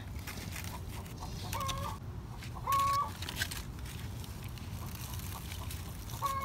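A chicken clucking: three short, even calls, two close together about a second apart and one more near the end, over light rustling of leaves.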